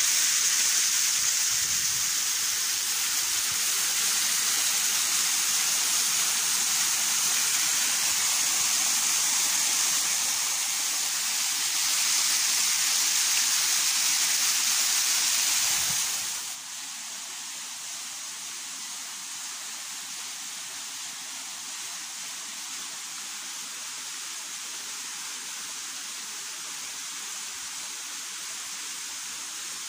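Small waterfall spraying and splattering down a rock face: a steady hiss that drops abruptly to a quieter level about halfway through.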